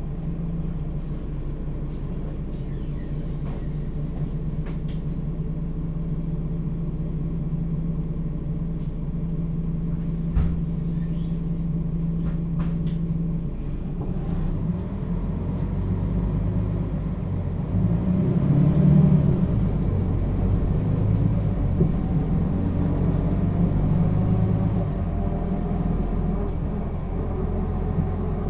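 Mercedes-Benz O 530 G Citaro articulated bus with a Voith automatic gearbox. Its diesel engine runs steadily for the first half, then the bus pulls away and the engine note climbs through rising tones, loudest a little past halfway.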